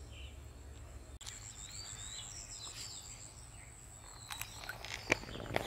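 Outdoor ambience of birds chirping and an insect's steady high-pitched trill, with a few sharp clicks in the last second or so.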